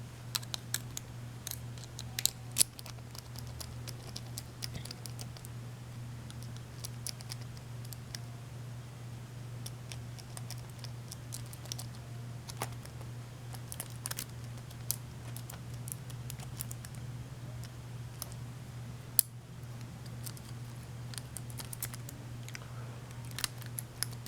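Lock pick rake working the pins of a laminated steel padlock under a tension wrench: irregular small metallic clicks and scrapes, with a steady low hum underneath.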